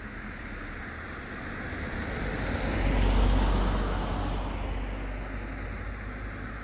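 A car passing on the road: tyre and engine noise with a low rumble that swells to a peak about three seconds in, then fades away.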